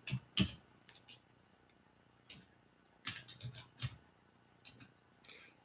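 Faint, scattered clicks and taps of computer keys being pressed, with a loose run of them about three to four seconds in.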